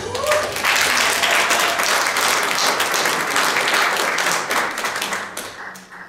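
Audience applause: many people clapping, dying away near the end.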